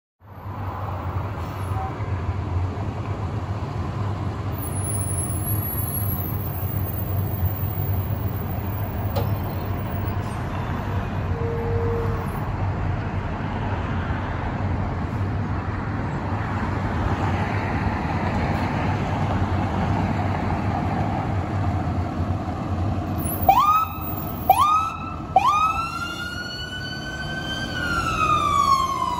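Fire engine responding: a steady low rumble of engine and road noise, then the electronic siren starts in near the end. It gives three quick rising whoops, then a long wail that climbs and then falls.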